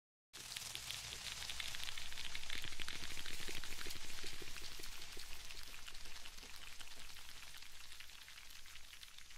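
A dense crackling patter of many tiny clicks from the show's soundtrack. It starts suddenly out of silence, builds over the first few seconds and then slowly eases off.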